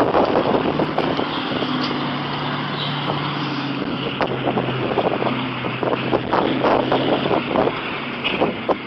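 Wind buffeting the microphone with crackling gusts, over a steady low engine hum that comes in about a second in and fades near the end.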